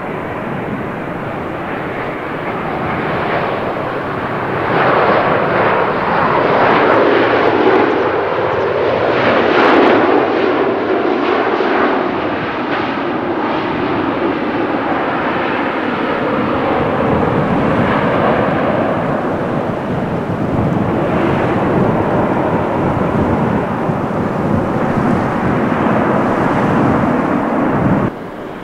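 Jet engines of a large widebody airliner passing close by: a loud, steady rushing noise that swells about five seconds in, stays strong, and cuts off suddenly near the end.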